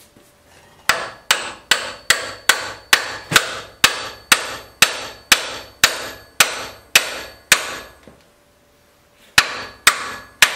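Ball-peen hammer striking metal in a steady run of about seventeen blows, roughly two and a half a second, each with a short metallic ring. After a pause of under two seconds a few more blows follow. It is driving the tilt-cylinder pin into its mount on the forklift.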